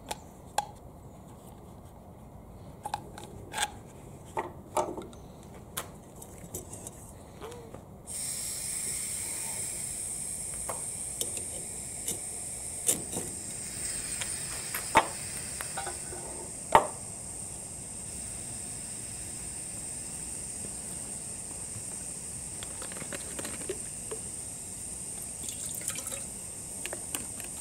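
Scattered clicks and scrapes of handling a knife and tools, then a gas-cartridge camping stove starts hissing suddenly about eight seconds in and keeps on steadily. A few sharp metallic strikes come over the hiss, and near the end water is poured from a canteen into a metal mess tin.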